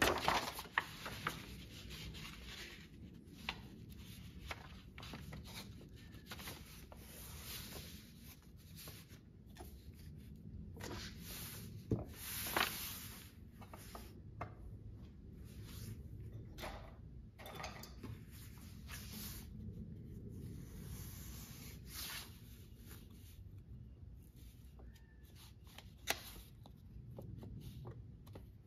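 Stiff kraft-paper pattern pieces rustling and sliding as they are rubbed flat over latigo leather on a workbench. A few sharp knocks come as things are set down on the bench.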